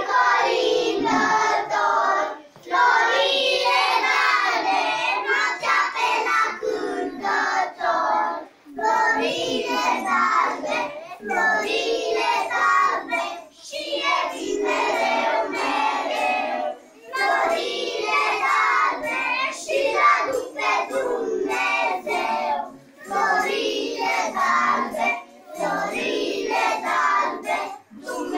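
A group of young children singing a song together, phrase after phrase with short breaths between.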